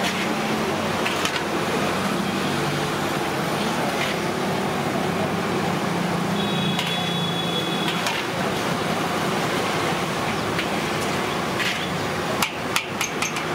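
Hot oil sizzling steadily as a batch of Mysore bonda deep-fry in a large iron kadai, with a few sharp clicks of the metal skimmer against the pan near the end.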